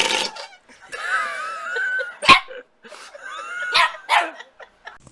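A dog barking and whining: several sharp barks and a long wavering whine.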